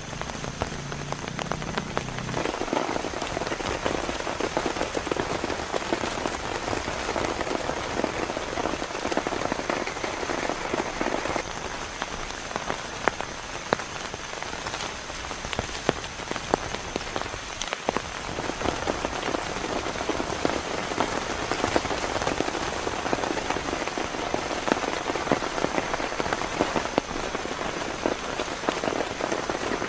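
Heavy rain falling: a steady hiss with many sharp individual drop hits.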